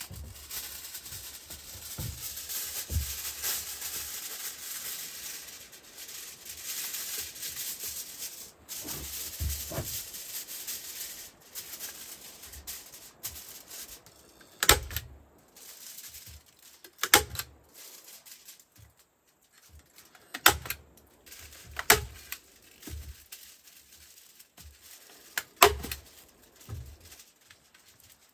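Thin aluminium food foil rustling and crinkling as it is unrolled and pressed in layers over a hollowed wooden grill lid. The rustle is continuous for the first ten seconds or so, then comes in softer handling with several sharp clicks in the second half.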